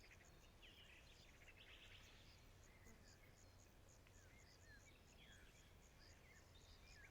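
Faint forest ambience: birds singing in short falling notes and trills, over a steady high chirping that repeats about three times a second.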